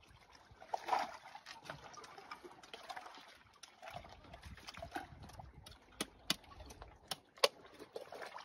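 A knife blade striking a sea urchin's spiny shell to crack it open: several sharp knocks in the second half, over faint wet splashing.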